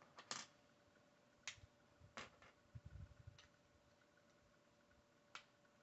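Plastic building bricks clicking faintly as they are pressed together and handled, about five separate sharp clicks spaced irregularly, with some soft rustling of pieces near the middle.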